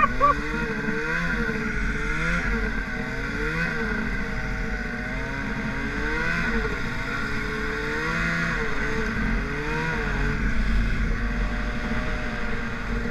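Turbocharged Arctic Cat snowmobile engine running under load in deep powder, its pitch rising and falling every second or two with the throttle. Wind buffets the microphone.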